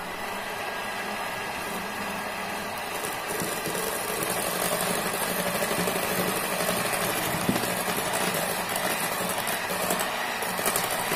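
Electric hand mixer starting up and running steadily, its beaters whipping a thick whipped-topping mixture with caramel powder in a bowl.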